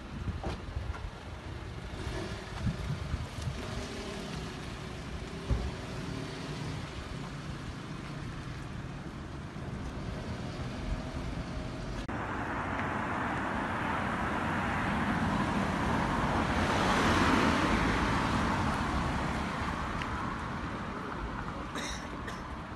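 Street traffic: a car drives past close by. Its tyre and engine noise swells from about twelve seconds in, peaks a few seconds later and fades away, after a stretch of low rumble with a few knocks.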